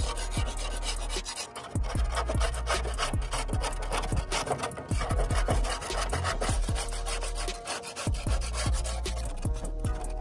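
Flat metal scraper blade scraping flaking rust and crusted coating off a rusty metal panel in rapid, repeated rasping strokes.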